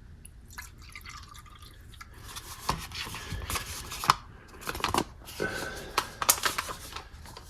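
Reconstituted fruit tea in a plastic ration drink pouch being handled, with liquid dripping and splashing and irregular clicks and rustles from about two seconds in.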